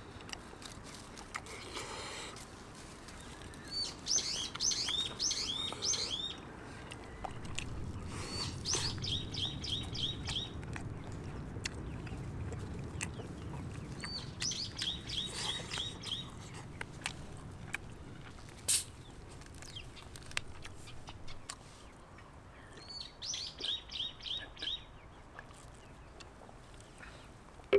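Wild songbird singing four short phrases of quickly repeated high notes, spaced several seconds apart. A single sharp click comes about two-thirds of the way through.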